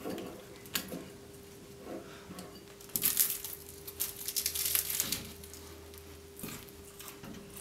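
Biting into and chewing a cheese-topped meat pie: the flaky pastry crust crunches and crackles in a run of crisp bursts about three seconds in, with smaller crackles before and after. A faint steady hum lies underneath.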